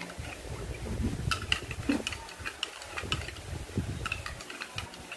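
Metal spoon stirring a drink in a glass tumbler, clinking against the glass in a string of light ticks, with a low rumble underneath.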